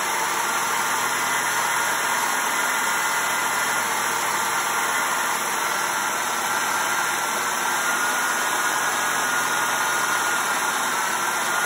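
1996 Ford F-150 engine idling steadily at a slightly high idle, with a thin, steady high whine over it. This is its first run on the refitted engine computer.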